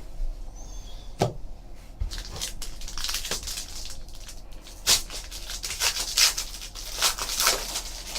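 Crinkling and rustling of a trading-card pack's foil wrapper being torn open and the cards handled, in irregular crackles, with a sharp click about a second in.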